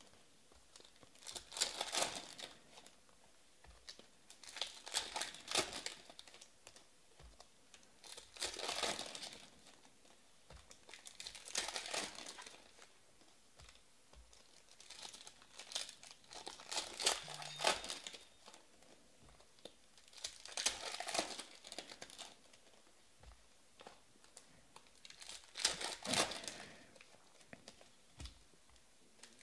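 Foil trading-card pack wrappers crinkling and tearing as packs are handled and opened by hand, in short rustling bursts every few seconds with quiet gaps between.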